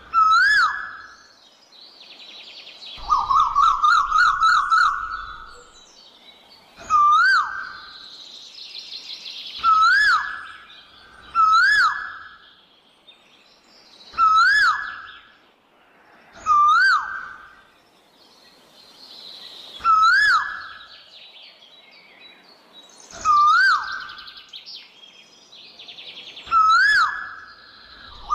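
Asian koel (koyal) calling: a single loud rising-and-falling note repeated about every three seconds, with a quick run of repeated notes about three seconds in. Other small birds chirp faintly and higher-pitched in between.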